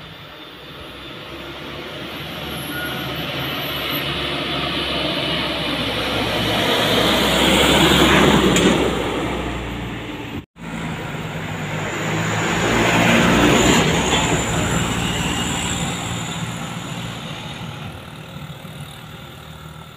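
Mitsubishi Canter chicken-crate truck's diesel engine labouring up a steep grade, growing louder as it passes close by. After a sudden cut a second loaded truck climbs past, swelling and then fading.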